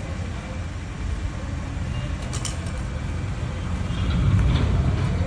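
A jump rope slapping the dirt a few times around two seconds in, then stopping, over a steady low rumble that grows louder near the end.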